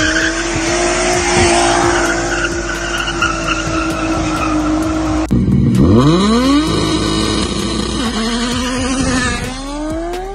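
Nissan Skyline RB straight-six engine held at steady high revs during a burnout, with tyres squealing. After a cut about five seconds in, a second Skyline's RB straight-six accelerates hard past, revs climbing steeply, levelling, then climbing again near the end.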